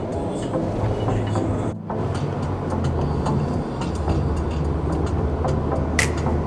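Motor vehicle running with a steady low engine rumble, broken briefly about two seconds in, and a short sharp sound near the end.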